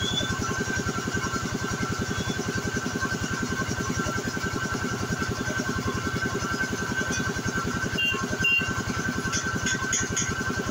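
Piston air compressor running with a fast, even chugging as it feeds an air hose pumping up a tubeless car tyre.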